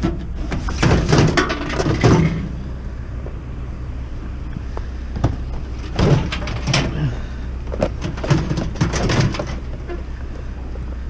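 Truck engine idling steadily, with several clusters of clunks and rattles as a discarded microwave is handled and loaded.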